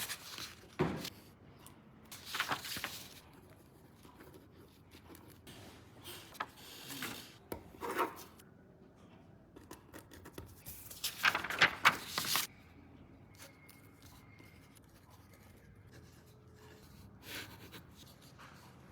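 Paper rustling and scratching in several short bursts with quiet stretches between, the loudest and longest about eleven to twelve seconds in.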